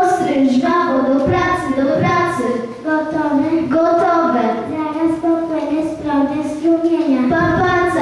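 A child singing a melody into a microphone, holding each note for about half a second to a second.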